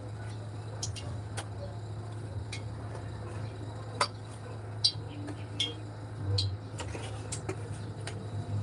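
Metal spoon clinking and scraping against an aluminium tray while coating fish fillets in flour, with scattered sharp clinks, two of them louder about four and five seconds in. A steady low hum runs underneath.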